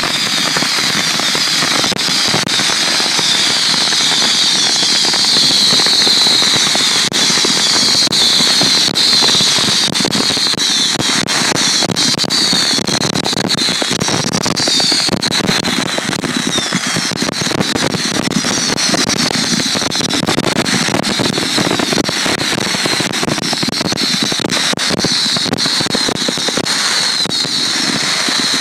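Fireworks finale: a continuous, dense barrage of bangs and crackling with no gaps, over a high whistling that keeps falling in pitch.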